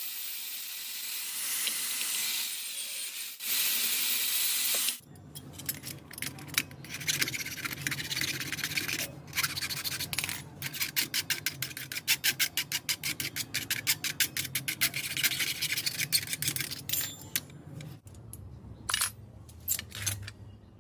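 A steady hiss that cuts off about five seconds in. Then rapid, rhythmic scraping strokes, about three or four a second, like rubbing or filing by hand on a workpiece. They thin out to a few scattered strokes near the end.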